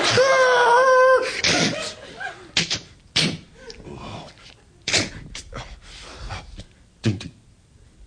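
A man imitating an ambulance siren with his voice into a microphone, a held wavering tone that cuts off about a second in. Then a string of short, sharp mouth-made sound effects, like smacks and slams.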